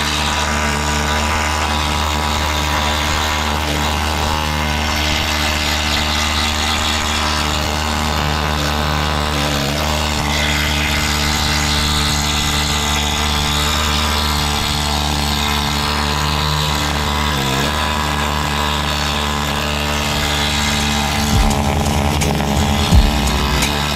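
Needle scaler hammering on a Toyota Hilux's steel rear chassis rail, a steady buzzing rattle as it knocks off flaky paint and loose surface rust. It turns uneven near the end.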